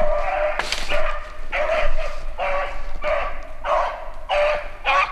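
Beagle puppy baying in a steady string of short howling calls, about one and a half a second: the cry of a hound running a rabbit's scent after it has jumped one.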